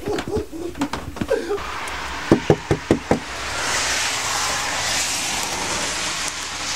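Five quick knocks on a door in a steady rhythm, then a steady hiss.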